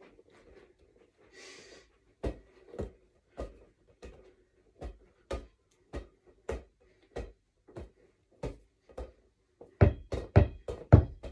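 A ball bouncing on a hard floor as it is dribbled: evenly spaced bounces about two a second, turning to louder, quicker bounces near the end.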